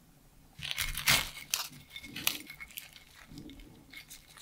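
Flaky puff pastry of a baked sausage roll crackling as it is pulled apart by hand on a ceramic plate, with a serrated knife clinking against the plate. The crackles and clinks come in a cluster about a second in, then lighter ones follow.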